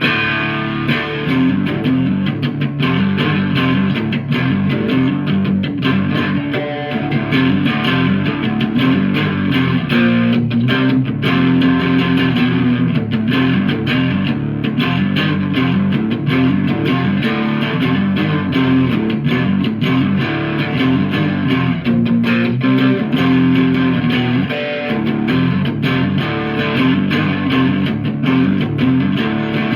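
Yamaha Revstar electric guitar playing a piece of music, starting abruptly and continuing loud and dense throughout.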